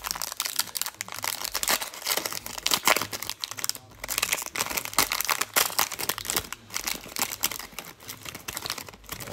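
Plastic foil wrapper of a Panini Prizm football card pack crinkling and crackling as it is torn open and peeled back by hand.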